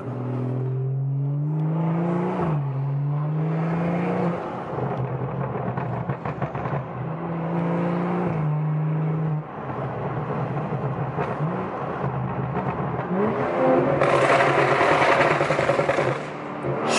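Turbocharged BMW F30 engine, running a BM3 tune with an aftermarket AP Racing intake, accelerating hard as heard inside the cabin. The engine note climbs in pitch through the gears, dropping at each upshift, the first about two seconds in. Near the end a loud rushing noise takes over for a couple of seconds.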